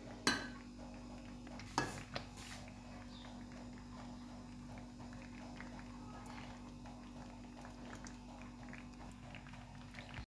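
Faint knocks and scrapes of a serving spoon against an aluminium pot as thick haleem is ladled into a dish. The loudest few knocks come in the first two and a half seconds, over a steady low hum.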